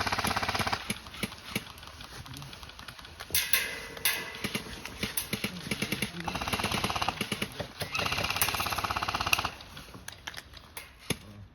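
Airsoft guns firing in short full-auto bursts: about four fast rattling bursts of around a second each, with scattered single shots between.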